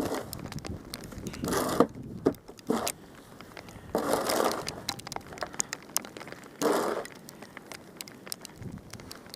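Snow crunching and crackling: three longer crunches a couple of seconds apart, among scattered small crackles.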